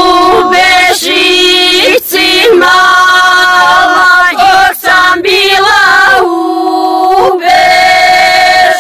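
A women's folk group singing a traditional Serbian village song together, unaccompanied, in long held notes.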